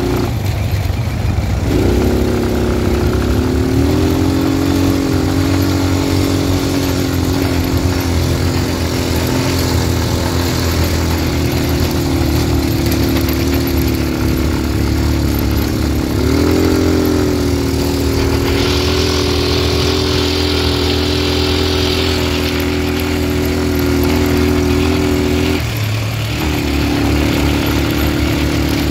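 Quad bike engine running at steady throttle, its pitch rising about two seconds in and again a little past halfway, with a brief dip in revs near the end.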